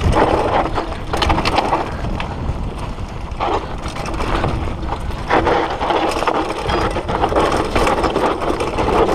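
Downhill mountain bike running fast over a bumpy dirt trail: a continuous clatter and rattle of the bike and tyres over the rough ground, with many small knocks over a steady low rumble of wind on the helmet-camera microphone.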